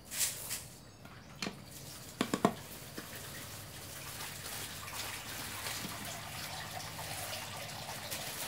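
A few sharp metallic clicks and knocks as the brass piston pump of an engine sprayer is taken apart, the loudest pair about two seconds in. About three seconds in, a steady hiss like running water begins.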